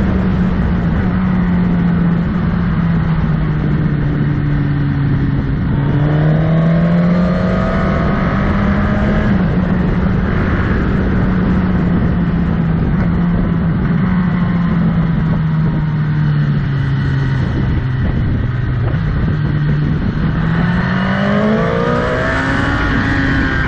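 Motorcycle engine running under way, its pitch rising as it accelerates about five seconds in and again near the end, over a steady rush of wind and road noise.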